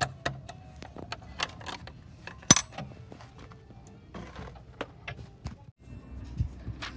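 Irregular sharp clicks and taps from a hand handling a wooden door and screen door frame, with one louder knock about two and a half seconds in. Near the end, wind rumbles on the microphone.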